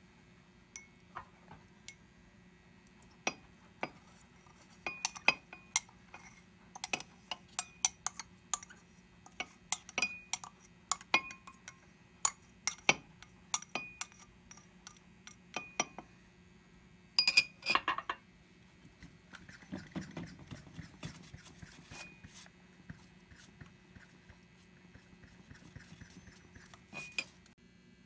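Glass laboratory vessels clinking and being tapped: a run of irregular sharp clinks, some ringing briefly, with a louder clatter about seventeen seconds in and a short stretch of soft scraping after it.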